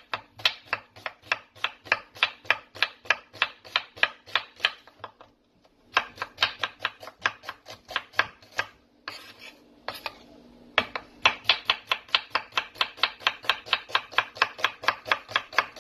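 Kitchen knife slicing a white onion on a wooden cutting board, in quick even strokes of about four or five a second. It pauses briefly about five seconds in, and again around nine to ten seconds in before the slicing resumes.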